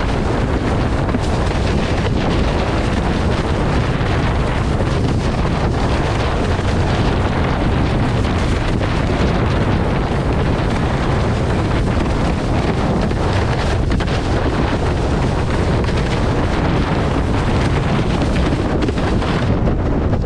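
Strong wind buffeting the microphone, mixed with the rush and slap of a windsurf board planing fast over choppy water.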